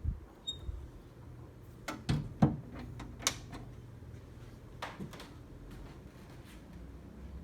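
A short high beep, then a handful of sharp clicks and knocks, the loudest about two and a half seconds in.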